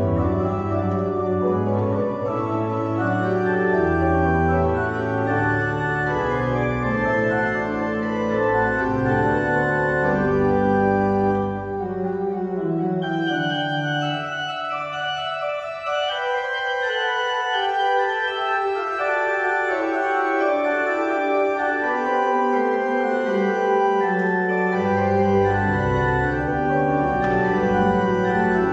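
Church pipe organ playing sustained chords. The low bass falls silent for about ten seconds in the middle and comes back near the end.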